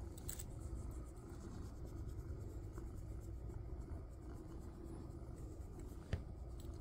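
Fingers scratching a cat's fur on the head and behind the ear, a steady scratchy rustle, over a low steady rumble of the cat purring. A single short click about six seconds in.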